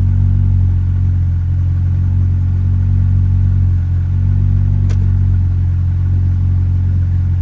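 Ford Escort Mk3 engine idling steadily, heard from inside the car. The owner notes a slight misfire while it warms up. A single sharp click comes about five seconds in.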